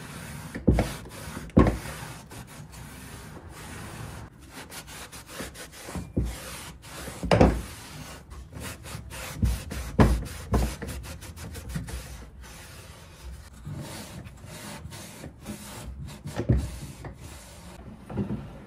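A cloth rubbing paste wax onto a dresser's wooden drawer runners, a steady scrubbing, broken by occasional sharp knocks.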